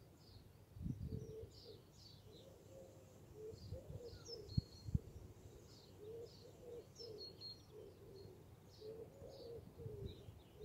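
Faint birdsong: small birds chirping in quick high notes over a repeated low cooing from a pigeon. Two short knocks close together about halfway through are the loudest sounds.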